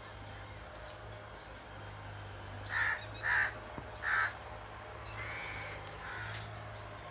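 Crow cawing: three short caws about three to four seconds in, then a longer, fainter call, over a low steady hum.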